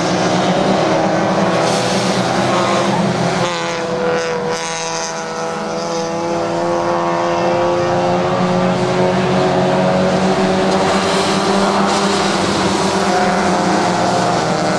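Engines of several Mazda Miata race cars running hard, each a four-cylinder, their notes overlapping. About four seconds in a fresh engine note comes in and slowly rises in pitch as a car accelerates past.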